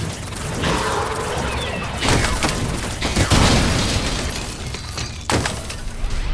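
Crashing and breaking sound effects: a run of loud, noisy crashes, with sudden new hits at the start, about two seconds in and again near the end.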